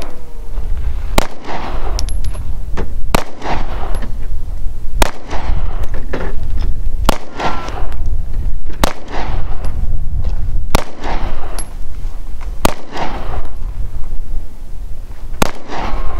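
Springfield XD-M 9mm pistol fired eight times at a slow, even pace, about one shot every two seconds, each crack followed by a short echo.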